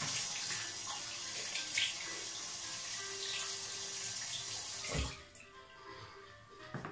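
Bathroom tap running water steadily, shut off about five seconds in with a knock. Boogie-woogie music plays softly underneath.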